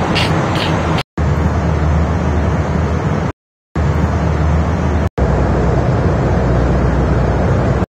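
Private jet cabin noise: a steady rush of engine and airflow with a low hum, cutting out dead for a moment three or four times.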